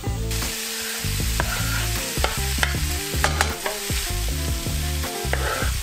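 A pan of tofu scramble with bacon and vegetables sizzling on the stove while tomatoes and herbs go in and a utensil stirs, clicking and scraping against the pan many times.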